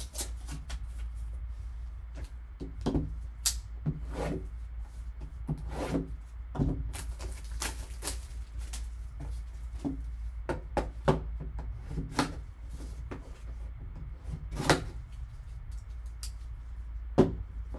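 Card box and packaging being handled and opened: scattered clicks, taps and crinkles of cardboard and plastic, with sharper knocks about 15 and 17 seconds in, over a steady low hum.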